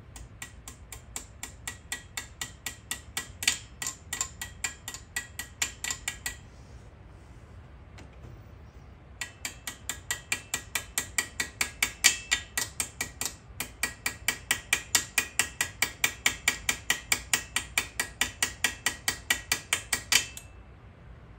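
Hand socket ratchet clicking in quick, even strokes as a bolt on the cylinder head is turned. It stops for about three seconds near the middle, then clicks on again and cuts off sharply near the end.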